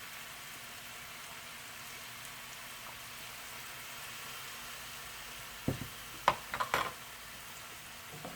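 Chicken wings sizzling steadily in a pan. About two-thirds of the way through there is a quick cluster of sharp clicks and knocks.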